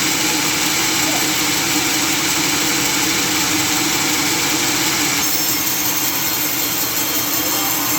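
Sawmill machinery running steadily: a constant engine-like drone with a low hum under a broad hiss, which changes slightly about five seconds in.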